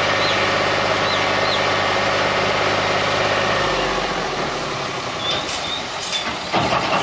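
Fiat 480 tractor's three-cylinder diesel engine running steadily, its note dropping lower a little under four seconds in; a few sharp clanks near the end.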